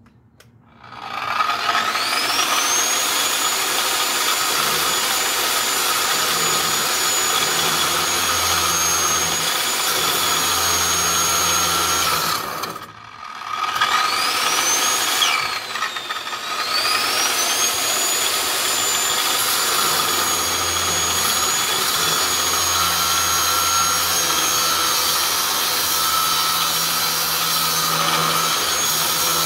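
Evolution electric demo saw fitted with an abrasive wheel, running up with a rising whine about a second in and then cutting scrap steel. Just before the middle it cuts out briefly and starts again, its whine sagging in pitch for a couple of seconds as the wheel bites and then recovering.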